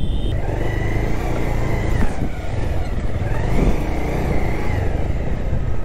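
Motorcycle running at road speed, engine and wind rush on the rider's camera microphone, with a faint high whine that rises and falls twice.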